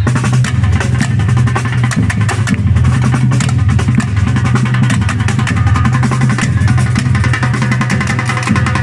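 A band playing loudly, with a drum kit beating steadily over a heavy bass line and guitar.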